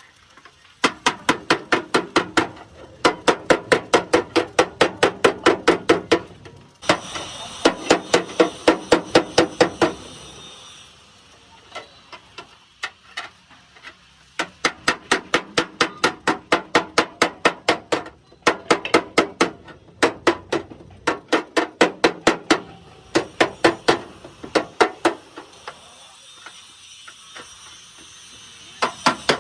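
Hammer beating metal, likely body panel work on an old Suzuki's accident damage. The blows come fast and even, about five a second, in runs of a few seconds with short pauses between, and each strike rings.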